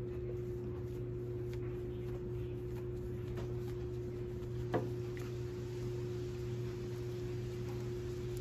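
Steady low electrical hum of a quiet room, with faint rustling and small taps as a cloth towel wipes paint off a leaf on a paper towel, one sharper tick a little before five seconds in.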